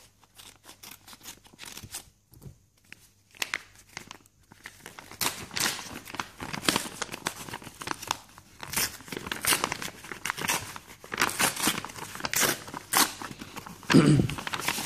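Scissors snipping at a paper mailing envelope, then the paper being torn and crinkled open in a long run of loud rips and rustles, with a heavier, deeper rustle near the end.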